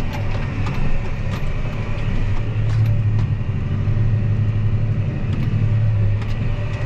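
Tractor engine running steadily while pulling a loaded grain wagon, a low steady hum with a few light clicks and rattles scattered through it.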